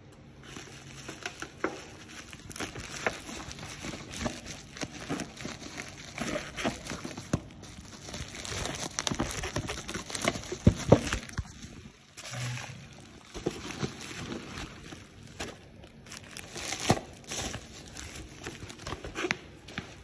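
Crinkling and rustling of packaging being handled, with many irregular clicks and small knocks, busiest about halfway through.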